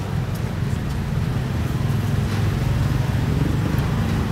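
Steady low rumble of road traffic, with a motor vehicle's engine running close by.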